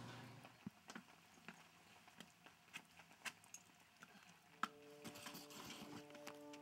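Faint footsteps, sharp clicks about every half second, over near silence; soft music with long held notes fades in about two-thirds of the way through.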